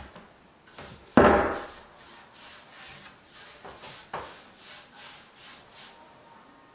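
A loud knock on wood about a second in, then repeated rubbing strokes on the wooden table surface, about two a second.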